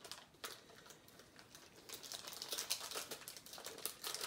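Foil trading-card pack wrapper crinkling as it is torn open and cards are handled, a string of short crackles that grows busier about halfway through.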